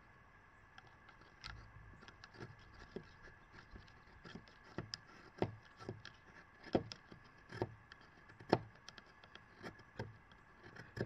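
Knife cutting shavings from a thin wooden stick held upright on a wooden table. Short sharp strokes come irregularly, about one a second, and grow louder in the second half.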